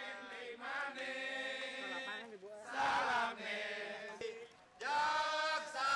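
A crowd of political supporters singing and chanting a campaign chant together in unison, with a brief break near the end.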